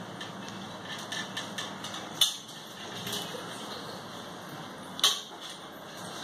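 Light taps and knocks of a toddler's hands and knees against a low glass-topped metal table as he climbs onto it, with two sharper knocks about two and five seconds in.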